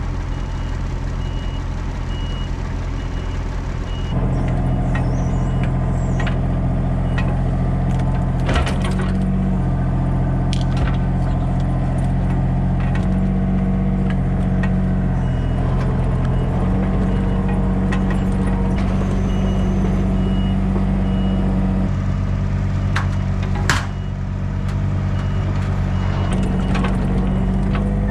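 Engine-driven machinery running steadily, its engine note stepping up about four seconds in and shifting again later. A faint repeating beep comes and goes, and there is a sharp click near the end.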